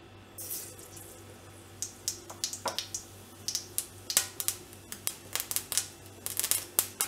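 Mustard seeds dropped into hot cooking oil in a kadai: a brief soft hiss as they go in, then sharp crackling pops that come faster and closer together as the seeds start to splutter, the sign that the oil is hot enough for tempering.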